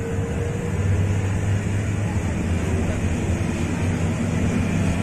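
Hino RK8 R260 bus's diesel engine running with a steady low drone, heard from inside the bus.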